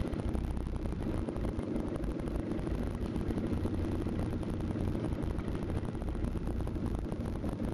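Off-road 4x4 engine running steadily, with a low rumble of wind on the microphone.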